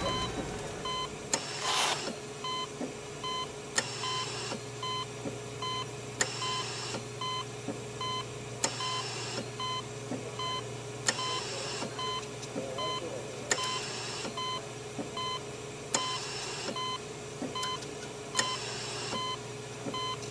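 Electronic beeping: a short tone repeating a little faster than once a second over a low steady hum. About every two and a half seconds a short hiss with a click comes in over it.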